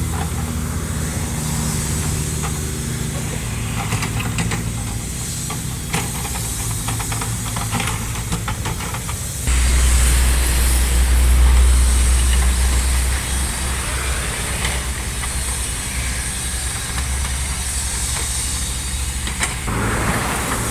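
Small excavator's diesel engine running, with scattered knocks and scraping as the bucket breaks into the asphalt road surface. About halfway through the engine comes under heavier load and grows louder, eases off, then labours again near the end.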